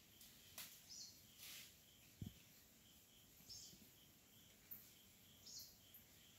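Near silence with faint forest sounds: short insect chirps repeating steadily and a few brief bird calls, with one soft low thump about two seconds in.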